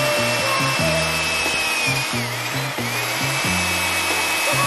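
Power drill running with a steady whine, drilling into a flexible polyurethane duckbill spoiler on a car's trunk lid; the pitch dips briefly about two seconds in. Background music with a steady bass beat plays underneath.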